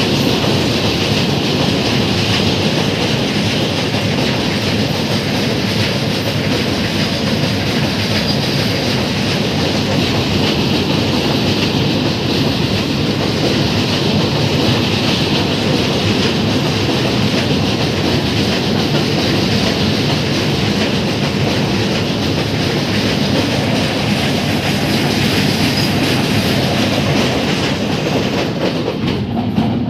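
Goods train wagons rolling past close by on a steel railway bridge: the wheels running over the rails make a steady, loud din that holds through the whole passage.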